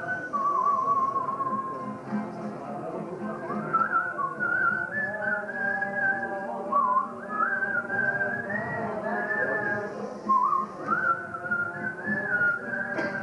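Live Jewish folk music: an acoustic guitar and voices singing a melody, with the tune whistled high above them.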